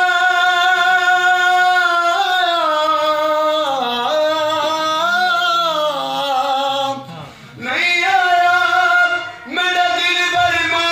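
A man singing a Punjabi naat solo into a microphone, holding long, ornamented notes that bend up and down. He breaks off briefly about seven seconds in and again near the end.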